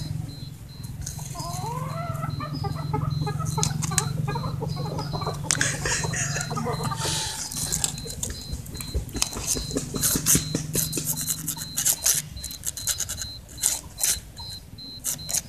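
A twig scraping and tapping on a concrete step while a cat swats at it: an irregular run of scratches and clicks through the second half. Earlier, a low steady hum and short wavering animal calls sound in the background.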